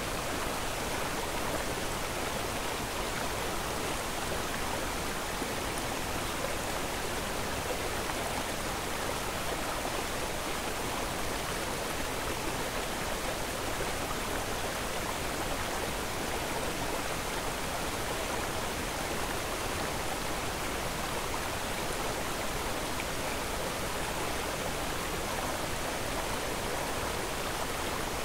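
A steady, even rushing noise that never changes, with no rhythm, tones or separate events.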